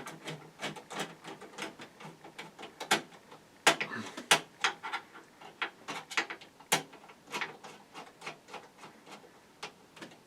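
Screws being driven into a hard drive bay in a metal PC case with a screwdriver: an uneven run of small clicks and metallic knocks, with a few louder knocks about four and seven seconds in.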